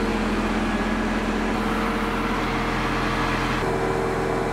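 Engine of a truck-mounted crane running with a steady hum while it lifts a suspended load. The tone shifts slightly about three and a half seconds in.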